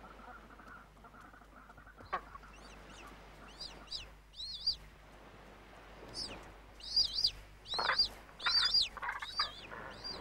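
Fiordland crested penguin chick begging with shrill, wavering peeps. They are sparse at first, then come thick and loud in the second half, with a few harsher, lower calls mixed in.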